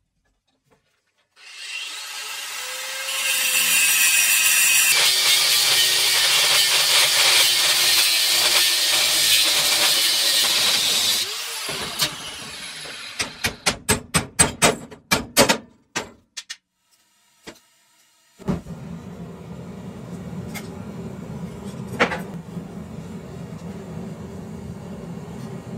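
A round steel bar clamped in a bench vise being cut with a steady, loud cutting noise for about ten seconds; the tool's tone winds down and a run of sharp metal knocks follows. Then a forge built from a gas cylinder runs with a steady rushing noise.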